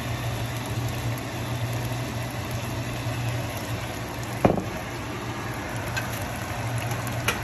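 Pot of peas in cream cheese sauce simmering on an electric stove under a steady low hum, with a single sharp click about four and a half seconds in.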